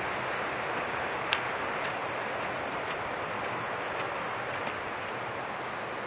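Steady rushing of a small waterfall and rocky mountain stream, with a few light clicks, the sharpest just over a second in.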